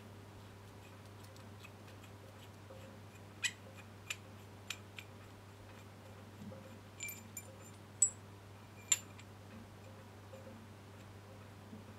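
Scattered metal clicks and clinks from an A/C compressor clutch holding tool and its fittings being handled, a handful of sharp ticks with the loudest two about eight and nine seconds in, over a low steady hum.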